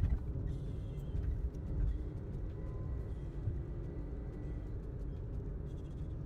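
Steady low rumble of a motor vehicle on the road.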